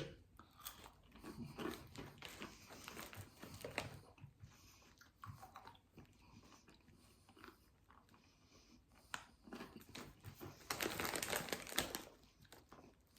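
A person biting and chewing crunchy Cheetos, with crisp crackles of the cheese puffs breaking in the mouth. There is a louder run of crackling near the end.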